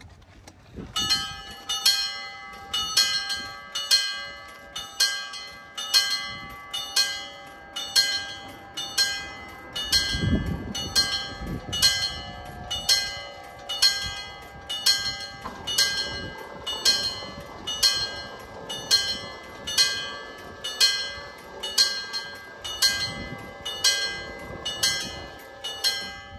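Level-crossing warning bells ringing: evenly repeated metallic strikes, about two a second, starting about a second in, signalling that a train is approaching and the barriers are coming down. A brief low rumble sounds under the bells about ten seconds in.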